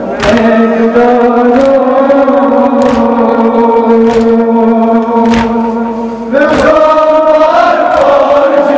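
A group of men chanting a Shia mourning lament (noha) in unison, holding long steady notes, with chest-beating (matam) striking in time about once every second and a quarter. A new line starts on a higher pitch a little past six seconds in.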